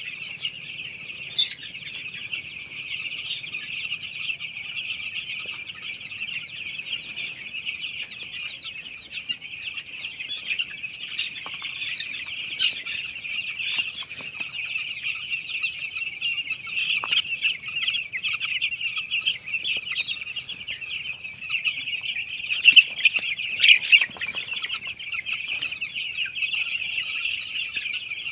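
A large crowd of young chicks peeping continuously, many high, short calls overlapping into a steady chorus, with a few louder calls about three quarters of the way through.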